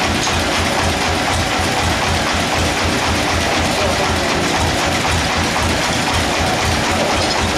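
Band sawmill machinery running steadily and loudly, with a low throb pulsing about four to five times a second.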